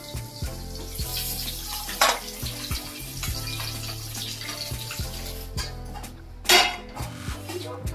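Metal ladle stirring food in a wok, clinking and scraping against the pan, over a frying hiss. A brief louder noise comes about six and a half seconds in.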